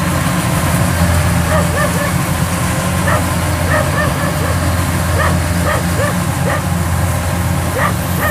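Kubota DC-93 combine harvester's diesel engine running steadily under load as it harvests rice in soft mud. An irregular series of short high-pitched chirps or yelps sounds over it from about a second and a half in.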